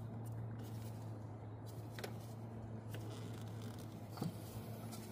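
Gloved hands working a vacuum hose off a car's evaporative purge valve: light rustling and a few small clicks, the sharpest about four seconds in. Under it runs a steady low hum, consistent with the Chevy Cobalt's four-cylinder engine idling for a running vacuum test of the purge valve.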